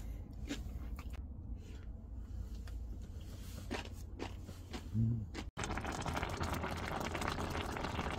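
A few light clicks and taps as a plastic kimchi container is handled on a table, over a low steady hum. About five seconds in the sound cuts abruptly to an electric pot of fish-cake udon simmering, a dense crackling hiss.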